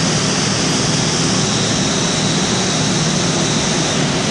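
Seoul Metro Line 2 electric train standing at the platform with its doors open, its onboard equipment giving a steady mechanical drone and hiss.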